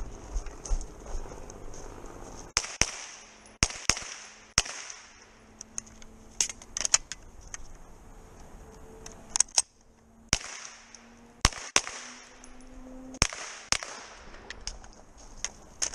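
Pistol-caliber carbine shots, mostly in quick pairs, with short pauses between groups as the shooter moves to new targets.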